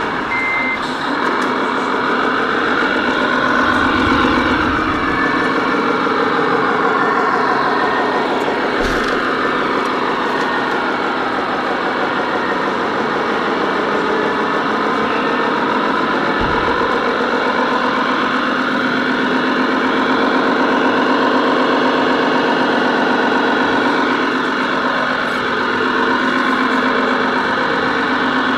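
Radio-controlled scale truck driving along the track: a steady mechanical drive sound whose pitch rises and falls with its speed.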